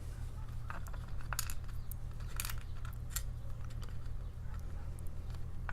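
Scattered small metallic clicks and ticks of tiny lock pins and pick tools being handled while a padlock is taken apart, over a steady low electrical hum.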